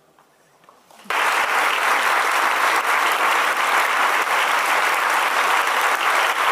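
About a second of near silence after the music ends, then an audience starts applauding suddenly and keeps clapping steadily.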